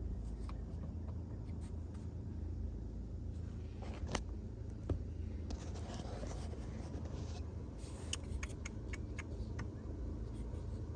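Light clicks and scrapes of hands handling a fish finder and pressing its buttons while powering it on, in scattered bunches in the middle and latter part, over a steady low rumble.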